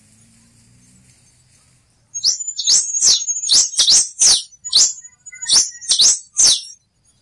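Black-and-rufous warbling finch (quem-te-vestiu) singing: starting about two seconds in, a quick run of about ten sharp notes, each sliding down in pitch, over some four and a half seconds.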